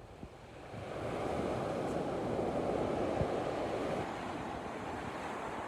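Sea waves washing in against the shore, a rushing swell of surf that builds about a second in and eases off after about four seconds.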